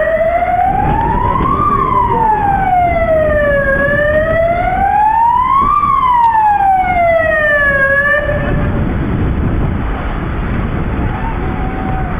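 Emergency vehicle siren wailing slowly up and down, each rise and fall taking about two seconds, over a low rumble; the siren stops about two-thirds of the way through.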